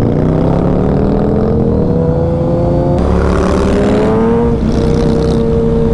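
Suzuki Hayabusa's inline-four running through a Brock's Alien Head 2 aftermarket exhaust at highway speed. Its pitch climbs as it accelerates, climbs again from about three seconds in, then holds steady, with a rush of wind noise.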